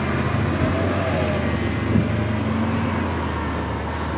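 Road vehicles at a grade crossing, a transit bus and a box delivery truck, driving by: a steady low engine hum with road noise, and one short tap about two seconds in.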